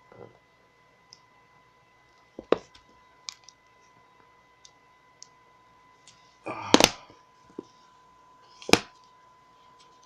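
Knocks and clicks of a fizzy drink container being handled and opened, with a short burst of noise ending in a sharp crack about six and a half seconds in and another sharp click near the end. A faint steady whine runs underneath.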